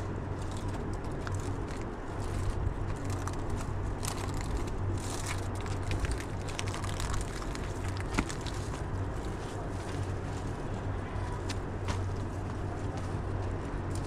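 Scattered scrapes, clicks and crunches of footsteps on rock and dry brush, over a steady low rumble.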